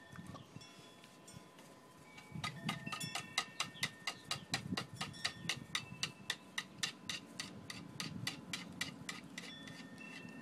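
Wind chimes ringing with a few sustained tones. About two seconds in, a rapid, regular clicking starts, about five sharp clicks a second, and runs until near the end.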